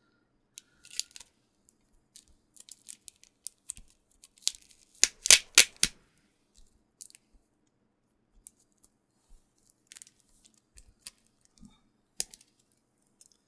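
Cellophane shrink wrap and tape crinkling and crackling as they are picked and pulled open by hand: scattered sharp crackles, densest and loudest about five seconds in.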